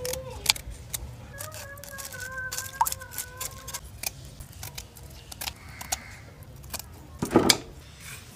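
Serrated kitchen scissors scraping scales off small fish and snipping fins: a run of short scratchy clicks and snips. A pitched tone is held in the background for a couple of seconds early on, and a louder brief burst comes near the end.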